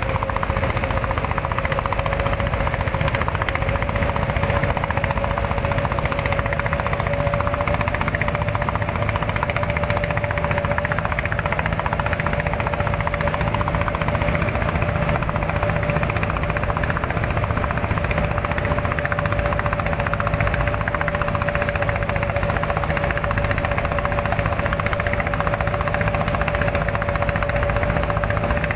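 A small motor running steadily: a rapid rattling pulse under a steady whine that rises slightly in pitch during the first several seconds.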